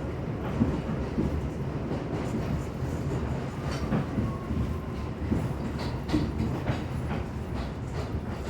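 R62 subway train running along the track: a steady low rumble with irregular clacks as the wheels pass over rail joints.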